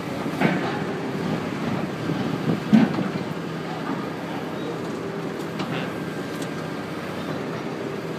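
Caterpillar 322C excavator running steadily as its hydraulic thumb swings open and closed. A few knocks are heard, the loudest about three seconds in.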